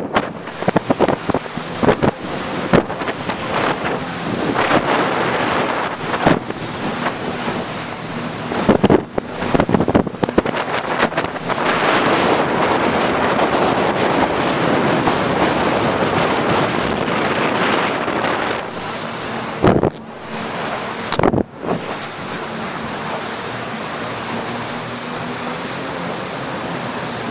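Wind blowing hard across the microphone over the rush of river water beside a moving jet boat, with the boat's engine humming steadily underneath; a few louder gusts hit the microphone around a third and three quarters of the way through.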